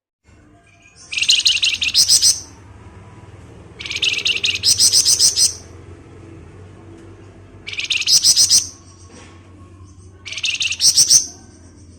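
Flamboyan songbird singing its 'ngebren' song: four bursts of fast, machine-gun-like repeated high notes, each about a second long and about three seconds apart, over a steady low hum.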